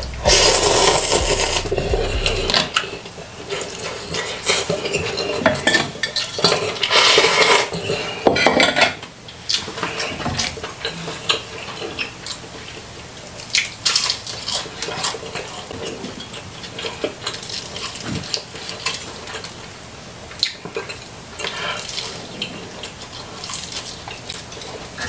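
Close-miked eating: loud slurps of instant noodle soup in the first couple of seconds and again about seven seconds in, then chewing and biting into a grilled chicken leg, with many small wet clicks and smacks.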